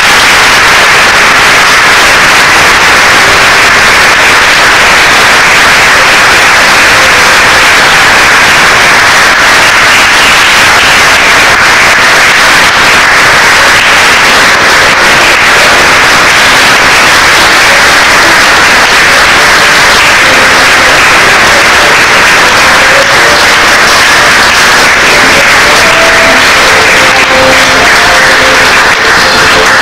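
Theatre audience applauding, loud and steady, with music faintly coming back in under it near the end.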